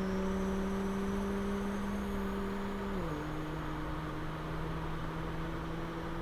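A person imitating a car engine with their voice: one long, steady hummed drone that steps down to a lower pitch about halfway through and holds there.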